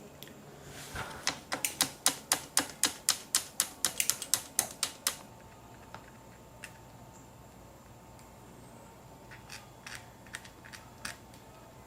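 Sharp, even mechanical clicking from a road bike being lubricated at the derailleurs: a quick run of about four to five clicks a second lasting about four seconds, then a few scattered clicks near the end.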